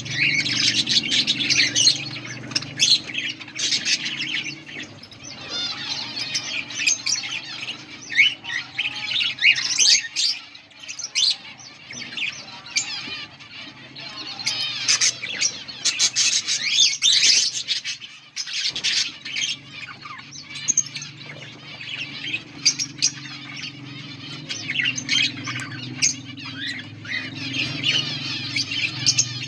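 A colony of budgerigars chattering together, with many overlapping chirps, warbles and squawks and a brief lull about two-thirds of the way through. A steady low hum runs underneath.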